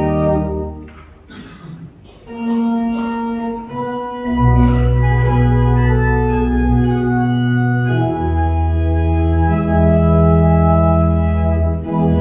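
Church organ playing sustained chords: a held chord fades out about a second in, and after a short pause new chords come in and are held, with a deep bass entering about four seconds in and the harmony changing every couple of seconds.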